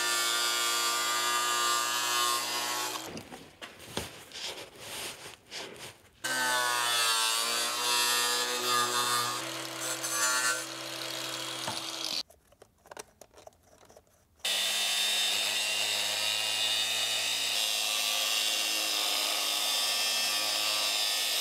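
Cordless angle grinder with a steel cutting wheel cutting through a steel PTO shaft tube, with sparks. The motor whines in three runs with short breaks between them, and its pitch dips briefly as the wheel bites in.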